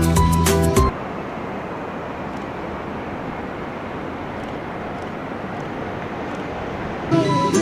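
Music stops about a second in and gives way to a steady rushing noise with no clear pitch, lasting about six seconds before music resumes near the end.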